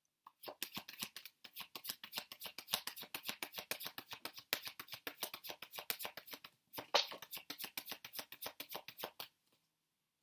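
Tarot deck being shuffled by hand, a fast run of soft card slaps and flicks, about eight a second, with a short break near the middle and a stop about a second before the end.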